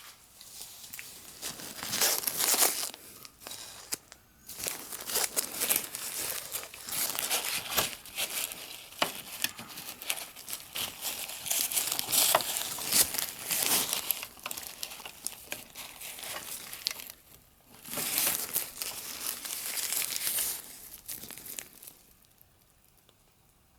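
Crinkly material crumpled and rustled by hand in irregular bursts, with short lulls about 4 and 17 seconds in, stopping about 22 seconds in.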